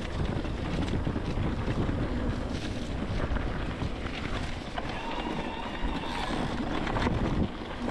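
Wind buffeting the microphone as a mountain bike is ridden along a dirt trail, with small knocks and rattles from the ride. A faint thin whine comes in about five seconds in and lasts a second or so.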